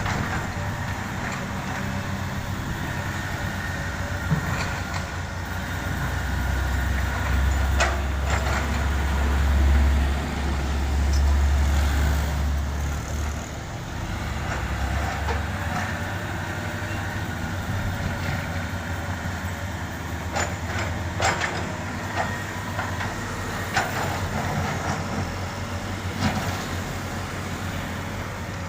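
Heavy diesel machinery running, with a deeper rumble that swells from about six seconds in and falls back at about fourteen seconds, and scattered sharp clanks.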